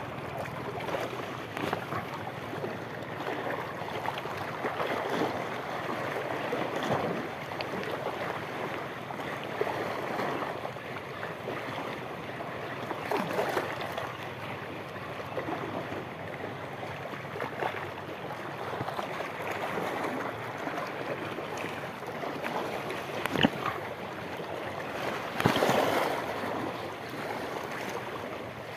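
Small sea waves lapping and washing over shoreline rocks, swelling and easing, with wind on the microphone. A sharp click comes about two-thirds of the way through, and a louder surge of water and wind near the end.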